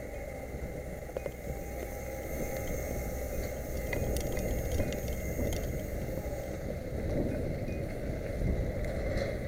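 Steady low rumble of street traffic, growing a little louder about halfway through, with a thin steady high whine and a few faint clicks.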